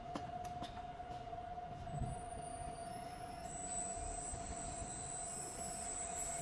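Vacuum emulsifying mixer's motors running with a steady whine, with a few clicks of control-panel buttons near the start. About halfway in, a second, much higher whine joins and a low rumble builds as more of the mixer is brought up to speed.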